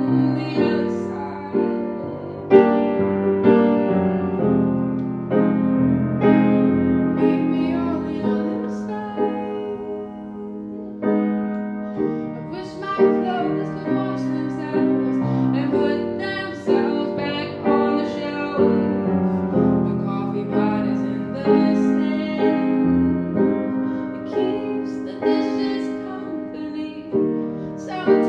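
Grand piano playing chords and melody, easing into a softer passage about ten seconds in before building again.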